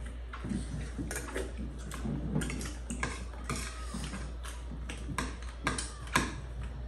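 Irregular small clicks and taps, about two or three a second, from people eating a meal, over a steady low hum.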